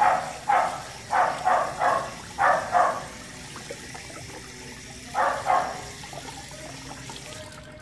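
Handfuls of water scooped from a plastic basin and splashed over a puppy being washed: a quick run of short splashes for about three seconds, a pause, then two more about five seconds in.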